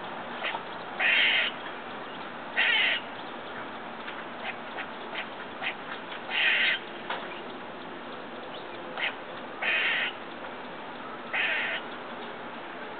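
A squirrel giving five loud, raspy, nasal calls of about half a second each at irregular intervals, with short faint clicks in between.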